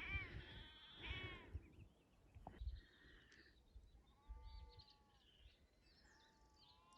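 Lambs bleating: two short, high calls at the start, then fainter bleats from farther off, with faint bird chirps.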